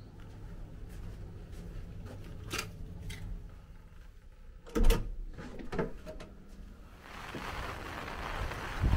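Hotel room door with a metal lever handle being worked: a few latch clicks, then a heavy thud as the door shuts about five seconds in, with another click after it. From about seven seconds in, a steady outdoor hiss takes over.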